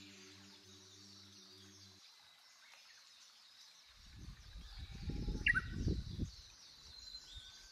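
Outdoor mountain ambience: small birds chirping in the background, with gusts of wind buffeting the microphone for a couple of seconds around the middle. A low held musical note fades out about two seconds in.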